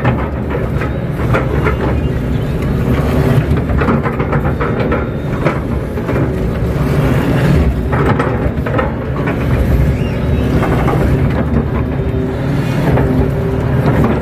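KATO crawler excavator's diesel engine running steadily under load, heard from inside the cab, with the hydraulics working as the bucket drags earth. Scattered faint knocks and scrapes sit over the engine.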